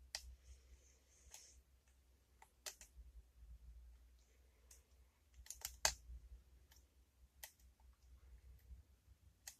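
Scattered faint metallic clicks of lock-picking tools, a pick and tension wrench, going into and working a clamped lock's keyway. There are about eight clicks, with a quick cluster of three about halfway through.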